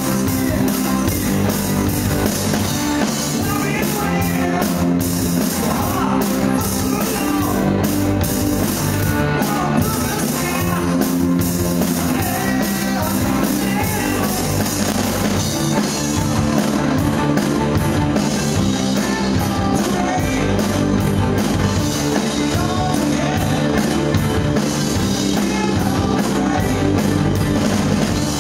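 Rock band playing live: electric guitars and a drum kit, with cymbals struck over and over.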